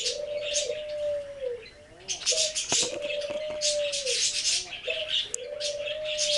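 A dove cooing in a slow repeating phrase, about every two and a half seconds: a long held note that drops at the end, then a short wavering note. From about two seconds in it comes with dry, scratchy high-pitched rustling, and there is a single sharp tap near the middle.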